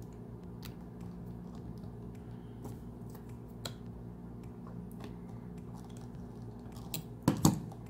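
Faint clicks and scrapes of jewellery wire being wrapped tight around a ring mandrel and worked with pliers, over a steady low hum. A louder handling bump comes near the end.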